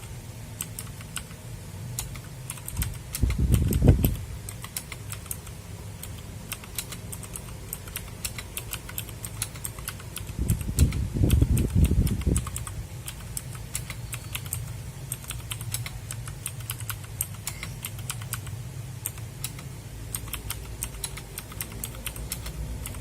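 Typing on a mechanical keyboard with Otemu clicky switches: a steady stream of quick key clicks, with two heavier spells of low thudding keystrokes about three seconds and eleven seconds in. It is being typed on to show how the keyboard sounds before it is modded.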